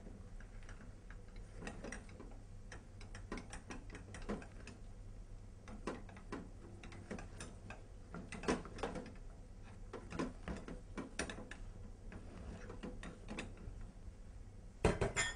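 Wooden spatula stirring and pressing a thick almond-powder and syrup paste in a stainless-steel saucepan, with irregular taps and scrapes against the pan and a louder run of knocks near the end. A steady low hum lies underneath.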